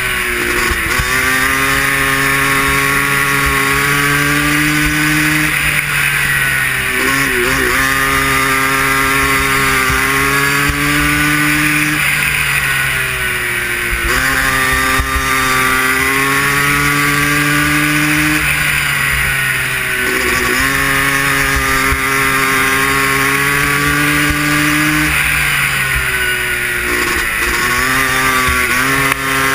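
Air-cooled racing ATV engine running hard at high revs. Its pitch drops briefly about every six or seven seconds as the throttle is eased for the turns, then climbs back up.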